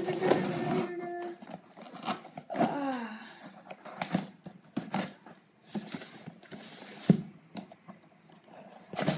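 Hands picking and pulling at the flaps and packing tape of a cardboard shipping box: scattered scrapes, taps and rustles of cardboard. There is a steady tone in the first second or so, and a short falling voice sound about three seconds in.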